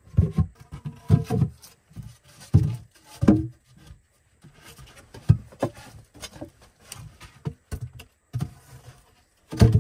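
Round wooden logs and poles knocking and thudding against each other and the log floor as they are handled and set in place: irregular knocks, a few each second with short pauses, the loudest cluster near the end.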